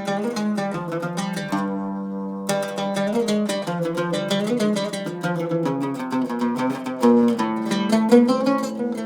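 An oud played solo: a fast melodic run of plucked notes, with some notes sliding in pitch.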